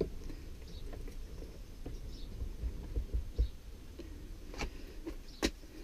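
Light, scattered knocks and clicks of handling as an ash hammer haft is set and clamped in a bench vise, with a few dull thuds in the middle and two sharper clicks near the end.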